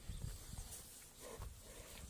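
Faint grunting of water buffalo, with a short call a little past the middle, over low rumbling.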